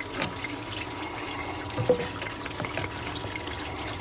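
Engine coolant trickling and dripping out of a disconnected heater hose and its fitting as the truck's cooling system drains.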